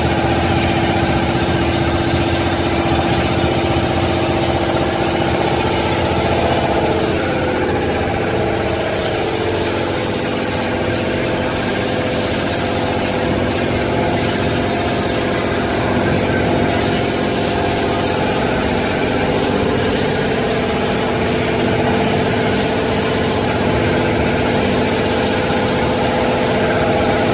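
Automatic band-saw log cutter for toilet-paper and kitchen-towel rolls running with a steady mechanical hum. From about eight seconds in, a short high hiss comes back about every two and a half seconds as the machine cycles.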